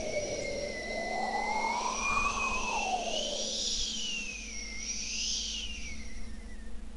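Synthesized whistling tones slowly gliding up and down over a low rumble, like an electronic sound effect. The lower tone ends about four seconds in, and the higher ones fade out near the end.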